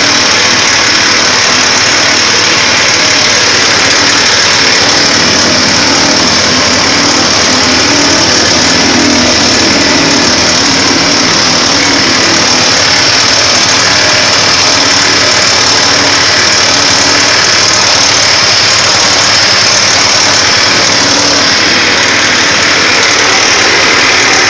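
Coconut-milk press machine running with a loud, steady mechanical drone.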